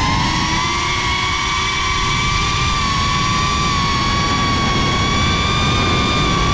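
FPV racing quadcopter's brushless motors whining at a nearly steady pitch as it cruises, over wind buffeting the onboard GoPro's microphone.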